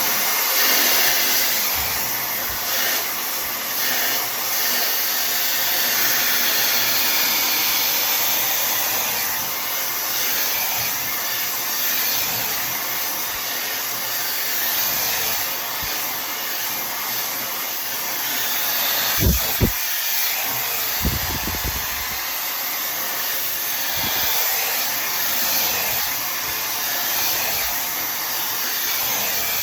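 Tymo Air Hype blow dryer running steadily, its airflow rushing as it dries hair. There are a couple of brief low bumps about two-thirds of the way through.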